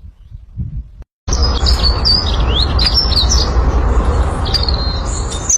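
Several wild birds chirping and whistling, with many short high notes and quick upward-sweeping calls. They start abruptly about a second in, over a loud steady rushing noise.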